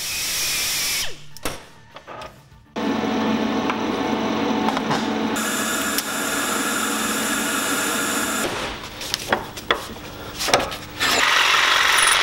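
A montage of metalworking tool sounds. A small grinder whirs on a length of round metal tube for about a second. After a short gap with a few clicks comes about six seconds of steady, buzzing TIG welding arc. Near the end, after some knocks, a power saw blade cuts through a bolt.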